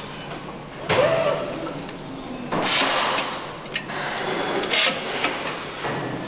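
Engine assembly-line noise: a steady workshop background with a sudden metallic clank about a second in, two short hissing bursts, and a few sharp clicks.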